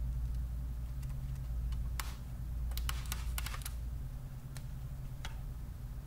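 Sharp plastic clicks as the bottom cover's retaining clips on a Samsung NP730QCJ laptop snap free under a guitar-pick pry tool: one about two seconds in, a quick cluster of several around three seconds, then a couple more singly. A steady low hum runs underneath.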